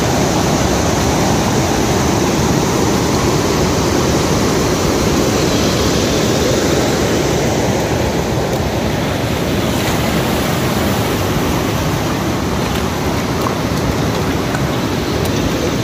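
Steady rushing of a flowing river, an even noise.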